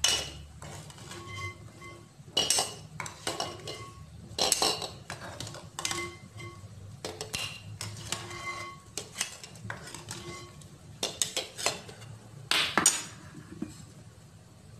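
Metal spoon knocking and scraping against an aluminium pot as hard-boiled eggs are scooped out of boiling water onto a glass plate: repeated clinks every second or so, many leaving a brief metallic ring.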